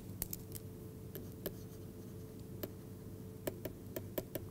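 Faint, irregular ticks of a pen stylus tapping on a tablet as a word is handwritten, over a low steady hum.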